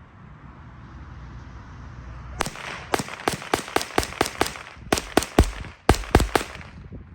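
Rapid semi-automatic gunfire from a .22 braced pistol: about seventeen sharp shots in three quick bursts, starting a little over two seconds in.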